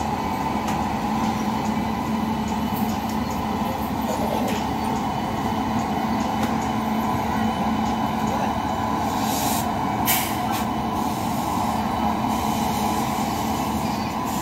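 WAG-9HC electric freight locomotive running slowly along the track, giving a steady hum with a few held tones over the rumble of its wheels on the rails. A brief hiss sounds about ten seconds in.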